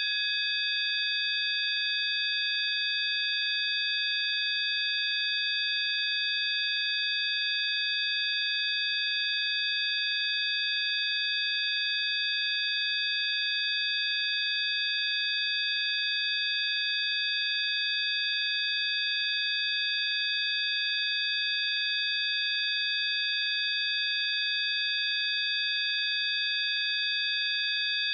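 Electronically generated 'healing frequency' tones: several high-pitched pure tones sounding together as a steady, unchanging hum, with a faint hiss beneath.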